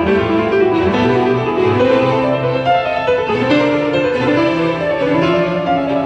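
Instrumental music with melodic string and piano parts, played back through Infinity Primus P362 floor-standing loudspeakers driven by a vacuum-tube amplifier and picked up by a microphone in the room.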